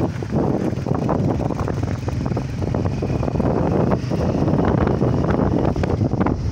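Wind buffeting the microphone of a moving vehicle, a loud gusty rush with a low steady drone underneath.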